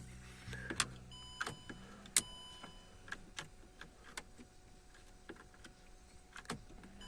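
Faint, irregular sharp clicks from a car's relay as the ignition is switched off and on, on a Range Rover 4.4 petrol that will not start, with no fuel pressure: the relay clicks but the fuel pump does not run. A low hum fades out about a second in.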